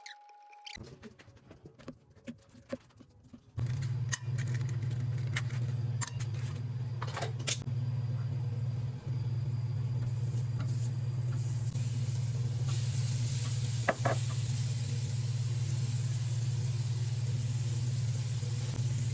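A machine switches on about three and a half seconds in and runs with a steady low hum, after a few quiet clicks; a hiss joins it about two-thirds of the way through.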